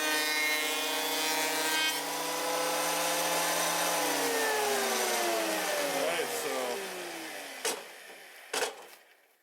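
Power planer running at full speed, thicknessing wooden trim boards, then switched off about four seconds in, its motor whine falling in pitch as it spins down. Two sharp knocks come near the end.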